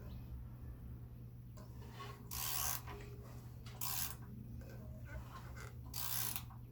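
Three short rasping strokes from hand work on an engine, about two, four and six seconds in, over a steady low hum.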